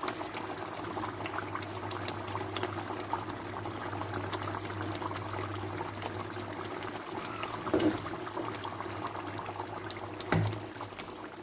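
A pot of palm-oil pepper sauce bubbling and spattering on the stove, with a low steady hum under it. Two louder knocks come about eight seconds in and near the end.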